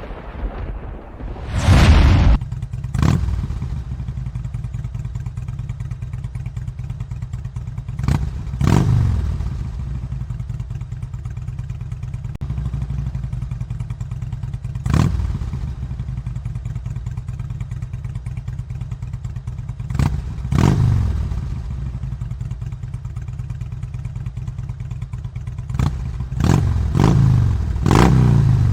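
Harley-Davidson V-twin motorcycle engine idling with a steady low rumble, blipped up in short revs every few seconds that fall back to idle, with a quick run of blips near the end.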